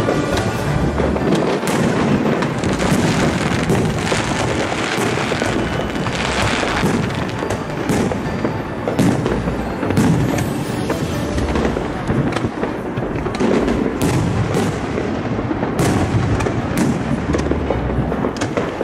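Aerial fireworks bursting overhead in quick succession: a dense, continuous string of bangs and crackling.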